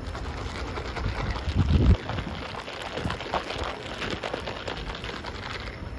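A sealed plastic cup of iced coffee with coffee jelly being shaken hard, the drink sloshing and the jelly pieces rattling against the cup in quick irregular clicks. A low rumble on the microphone is loudest in the first two seconds.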